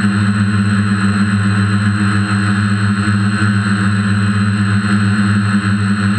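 DJI F450 quadcopter's electric motors and propellers running in flight, heard up close from the camera on its frame: a steady, even-pitched hum with a low tone and its overtone over a hiss.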